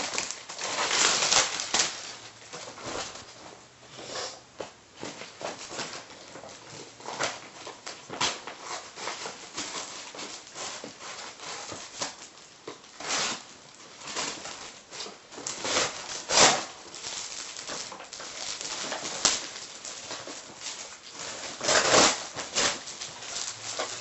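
A taped-up parcel being unpacked by hand: irregular rustling, crinkling and scraping of packaging, broken by sharp louder bursts about a second in, about 16 seconds in and about 22 seconds in.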